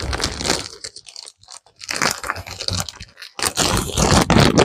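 Plastic bag of mini marshmallows crinkling and rustling in the hands as it is opened, in uneven spells that grow louder near the end.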